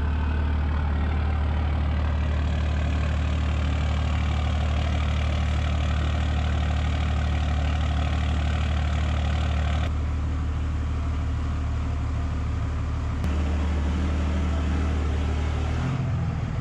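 Dodge Ram's Cummins turbodiesel idling steadily, a deep, even drone.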